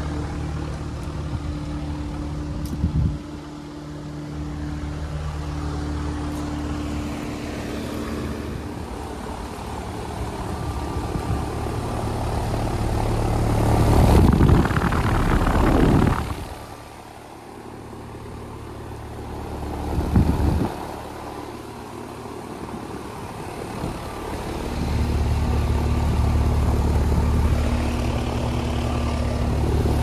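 Outdoor heat pump units running: a steady compressor hum with low tones under the whoosh of the condenser fan. About halfway through comes a loud rush of air as the fan's upward discharge blows across the microphone, with a shorter gust a few seconds later.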